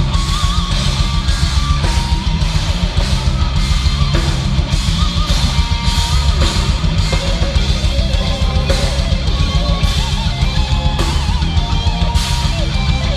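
Metal band playing live with distorted electric guitars and a pounding drum kit, a lead melody wavering above them.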